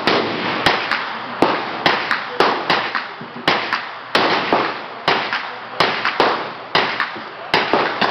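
Gunshots at a shooting range: shot after shot at irregular intervals, about two a second, each a sharp crack with a short echoing tail.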